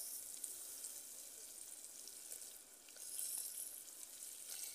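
Oil with tomato and onion frying in a pot over a wood fire: a faint, steady sizzle that swells a little about three seconds in as shelled sarnambi clams start sliding into the pot from a colander.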